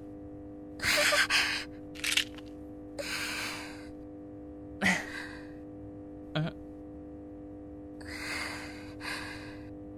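A young woman's breathy gasps and sighs of relief, several short breaths spaced over the seconds, over a faint steady hum of background tones.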